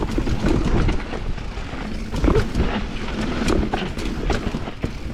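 Mountain bike riding down a dirt bike-park trail: tyres on loose ground under a constant low rumble, with frequent sharp clicks and rattles from the bike.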